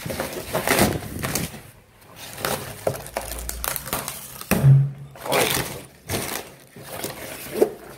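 Corrugated cardboard packaging being ripped off by hand, in a string of tearing and rustling bursts about once a second.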